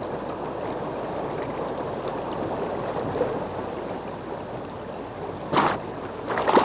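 Steady rush of river water flowing past, with two short splashes near the end.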